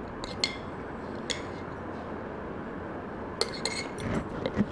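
Steel spoon clinking against a glass jar while scooping dry little millet grains: a few light clinks in the first second or so, then a busier clatter of clinks and taps near the end as the grains are handled.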